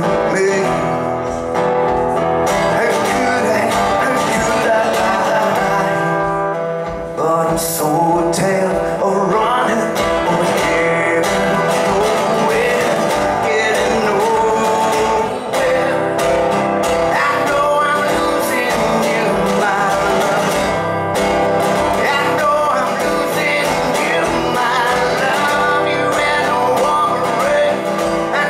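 A man singing with his own acoustic guitar, played live and miked.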